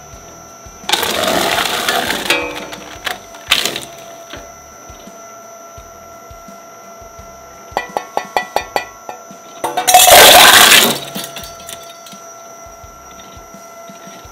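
Twin-shaft shredder's steel cutters crunching up a beach paddle: a loud grinding burst about a second in, a quick run of sharp clicks near the middle, then a second loud grinding burst, with the machine's steady whine underneath.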